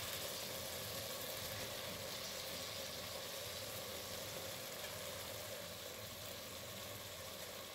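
Tomato-onion masala sizzling steadily in a pot as fresh mint leaves are added, with a faint steady hum underneath.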